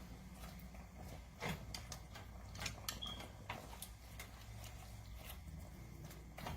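Scattered light clicks and knocks of kitchen handling, a few sharper ones about a second and a half in and around three seconds, over a low steady hum.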